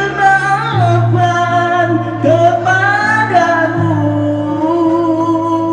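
A man singing a Malay song through a corded handheld microphone and PA, over backing music with a steady bass line.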